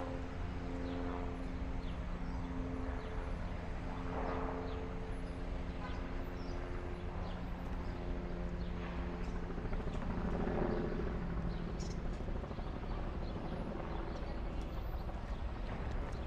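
City street traffic: a steady low rumble with engine hum, and vehicles swelling past about four seconds in and again near the middle.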